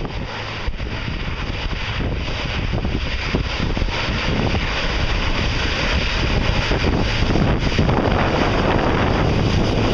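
Twin turboprop airliner's engines at takeoff power during its takeoff roll, a steady rush that grows steadily louder as the plane comes closer, with wind buffeting the microphone.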